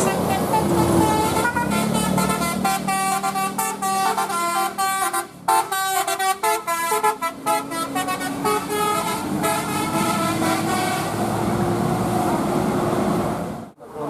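Bus telolet horn playing a quick tune of short notes that change pitch many times a second, over a passing bus's engine. The tune starts about a second and a half in and stops a few seconds before the end.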